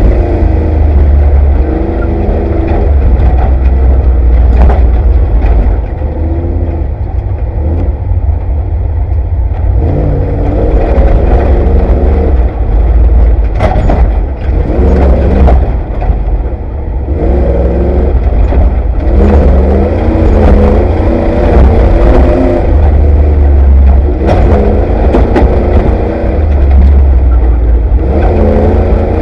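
Off-road race vehicle's engine heard from inside the cab, revving up and falling back over and over as the driver works the throttle and gears over rough desert ground, with a heavy low rumble and occasional knocks and rattles from the chassis.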